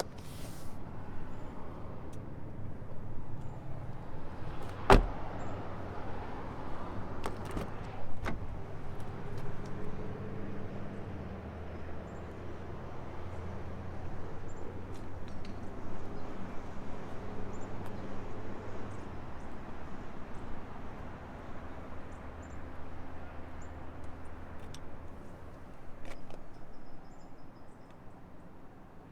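A 2020 Lexus UX 250h hybrid giving a steady low running hum, with a sharp thump about five seconds in and another about eight seconds in. The hum stops a few seconds before the end.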